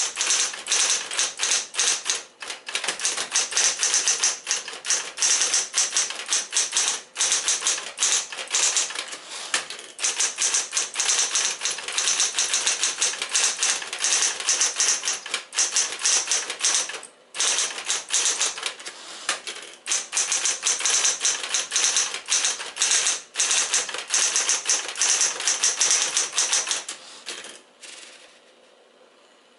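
Smith-Corona Coronet electric typewriter typing quickly: a dense stream of key strikes broken by short pauses every few seconds. The typing stops near the end.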